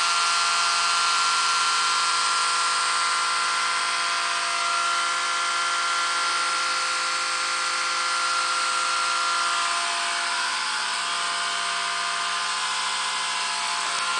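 Small electric motor running steadily: a whine of several fixed tones over a hiss, easing off slightly about ten seconds in.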